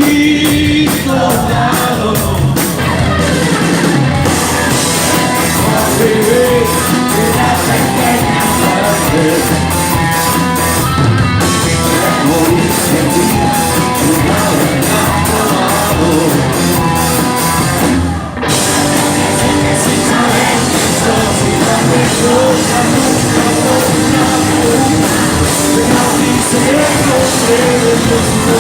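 A rock band playing live with a singer, the shouted vocals over dense, driving music. The sound drops out for a moment about two-thirds of the way through.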